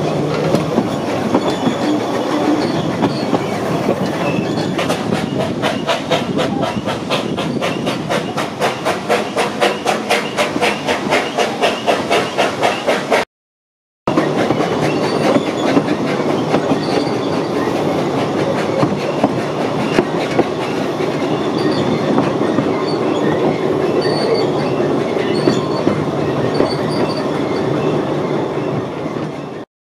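Narrow-gauge train heard from inside a carriage, its wheels clattering over the rail joints in a regular clickety-clack of about four clicks a second. After a sudden break the train runs on slowly alongside the platform with a steady rumble and faint high squeaks.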